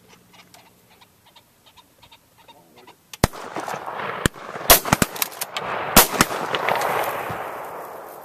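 A volley of shotgun shots from several hunters at pheasants flushed off a release tower: about eight sharp reports over three seconds starting about three seconds in, some nearly overlapping. Their rumble and echo fade slowly over the following seconds.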